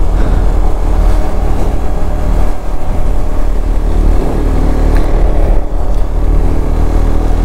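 KTM 390 Adventure's single-cylinder engine running steadily at road speed, with heavy wind rumble on the helmet-mounted microphone.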